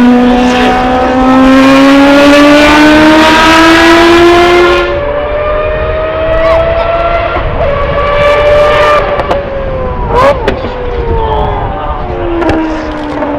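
Mazda 787B's four-rotor rotary engine at high revs, its high, clear pitch climbing steadily for about five seconds, then climbing more gently and sagging after about nine seconds. A few sharp cracks come about ten seconds in, and the pitch falls near the end.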